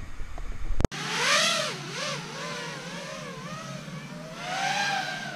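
FPV racing quadcopter's brushless motors and props whining, the pitch sweeping up and down as the throttle changes, louder in two surges. It starts about a second in, after a low hum.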